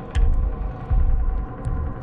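Electronic dance music with heavy, pulsing bass hits about twice a second and no vocals, with a few faint clicks over it.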